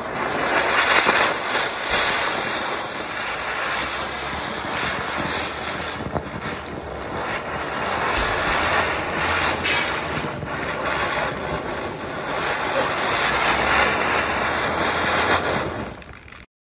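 Ananda Deluxe ground chakkar firework spinning on concrete: a loud, continuous hiss of burning composition with a few brief crackles, lasting about sixteen seconds and stopping abruptly near the end.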